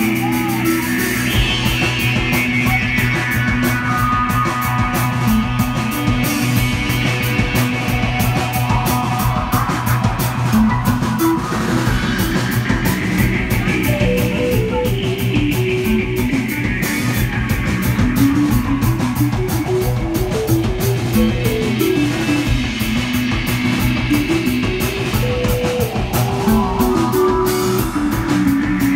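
Live instrumental psychedelic rock: electric guitars, bass and drum kit playing together, with a melodic line stepping up and down over held low notes and slow sweeps rising and falling in the upper range.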